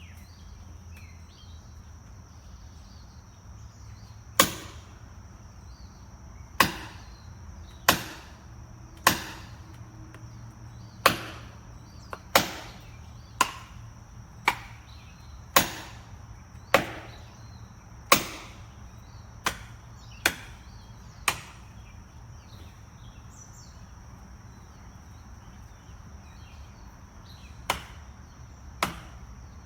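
A series of sharp, hard blows, about sixteen of them at roughly one per second, each with a short ringing tail, pausing for several seconds before two more near the end.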